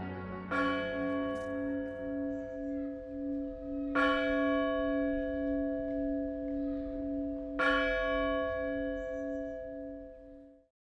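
A single large church bell tolled slowly, struck three times about three and a half seconds apart. Each stroke rings on with a pulsing hum until the sound cuts off near the end.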